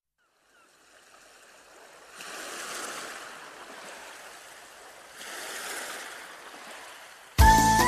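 Sea waves washing onto a shore, swelling twice about three seconds apart. Near the end a song's music starts suddenly and loudly.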